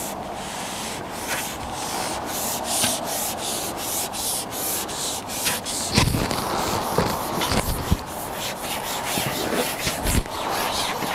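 Repeated rubbing and scraping strokes, a few a second, with dull thumps about six seconds in and again near ten seconds.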